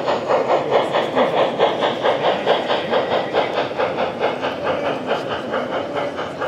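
Sound module of a model steam locomotive playing a steady chuffing rhythm, about five chuffs a second, as the locomotive runs.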